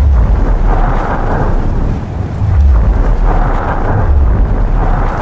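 Deep, loud rumble of a full-face hard-rock tunnel boring machine's cutterhead grinding through the last of the rock face as it breaks through, with swells of grinding and crumbling rock coming and going in waves.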